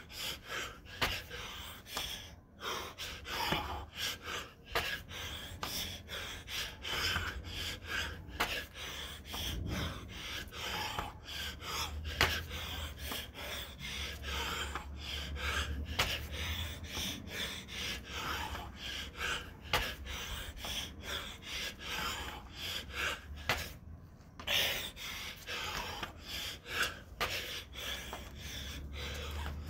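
A man breathing hard and fast, with rapid gasps and pants, out of breath from doing burpees without a break. A low rumble comes and goes underneath.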